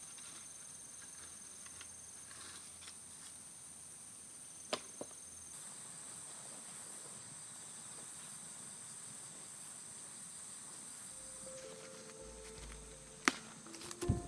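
Insects singing in the open: steady, high, continuous trilling, with a second insect's pulsed high buzz repeating about every second and a half through the middle. A few sharp clicks break in, and musical notes enter near the end.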